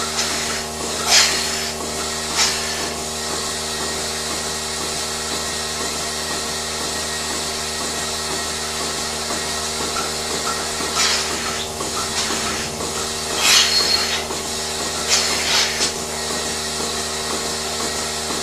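Steady machinery hum, with a few short hissing or clattering bursts over it, about 1, 2.5, 11, 13.5 and 15 seconds in.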